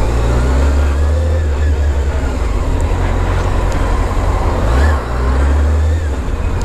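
Honda CBR600 F4i's inline-four engine with its stock exhaust, running at low revs as the motorcycle rolls slowly, heard as a heavy low rumble on the bike-mounted microphone. The note dips briefly about five seconds in.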